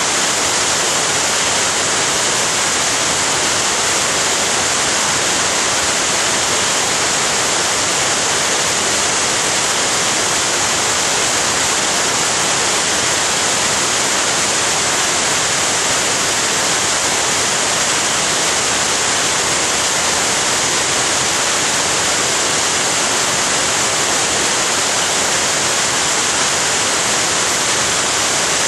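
Waterfall at Florence Falls rushing, a loud, steady roar of falling water that never changes in level.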